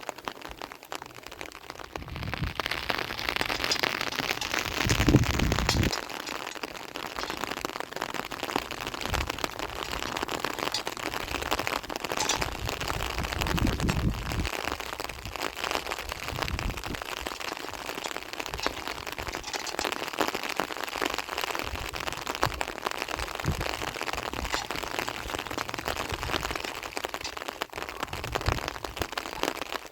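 Steady heavy rain falling, a dense even hiss that swells about two seconds in, with a low rumble about five seconds in and again around fourteen seconds.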